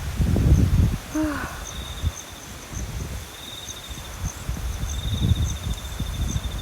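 Strong gusty wind buffeting the microphone in uneven surges, with insects trilling and chirping steadily in the background.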